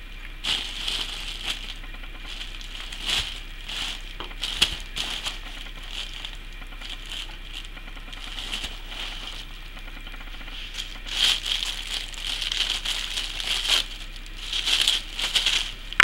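Thin tissue paper crinkling and rustling in short, scattered bursts as a cat rolls and paws on it, busier and louder in the last five seconds.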